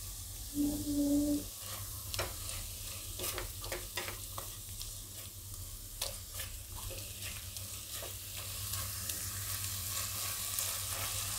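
Thick onion-tomato masala sizzling in oil in a kadai while a silicone spatula stirs and scrapes through it, making a string of soft clicks and scrapes. A short steady hum about a second in.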